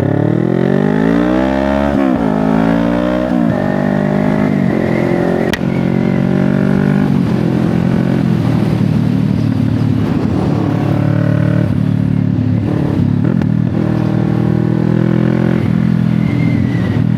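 CF Moto 650NK motorcycle's parallel-twin engine through an aftermarket SC Project exhaust, accelerating with a rising pitch through upshifts about two seconds and three and a half seconds in, then running at a fairly steady cruise.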